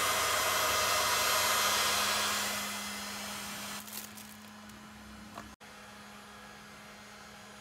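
Hand-held heat gun blowing steadily, its noise dying away about three seconds in. After that comes a much quieter steady hum, with a brief rustle of plastic wrapping.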